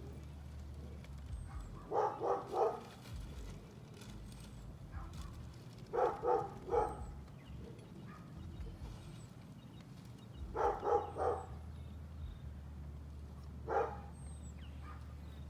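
A dog barking in quick runs of two to four barks, a run about every three to four seconds, over a steady low hum.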